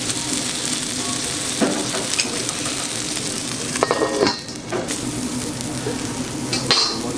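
Pork belly and cabbage sizzling steadily on a teppanyaki steel griddle, with metal clinks as a hammered copper dome lid is set down over the food about four seconds in and lifted again near the end.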